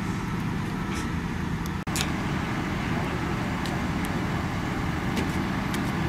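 Heavy diesel earthmoving machinery running steadily, with a few faint sharp clicks or clanks. The sound drops out for an instant just before two seconds in.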